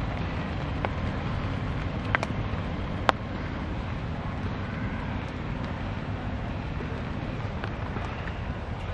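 Steady low rumble of outdoor background noise, with a few sharp clicks about one, two and three seconds in, the last the loudest.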